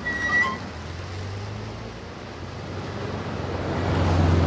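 Car engine running with a steady rushing, wind-like noise, its low hum growing louder near the end. A brief high tone sounds right at the start.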